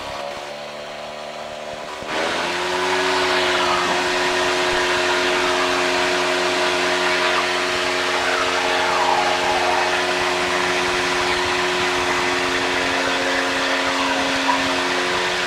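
Decathlon's single piston engine and propeller at full takeoff power during the takeoff roll, heard in the cockpit as a steady drone of several tones. Power comes up in a step about two seconds in, then holds steady.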